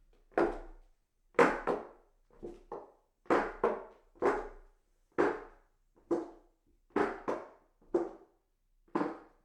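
Footsteps climbing hollow wooden stairs: a series of separate wooden footfalls, a little under two a second, some landing in quick pairs.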